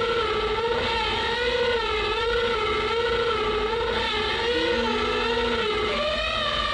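Warbling drone of several pitched tones over a low hiss, wobbling up and down in pitch about once a second. A lower tone comes in briefly about two-thirds through, and the pitch steps up near the end.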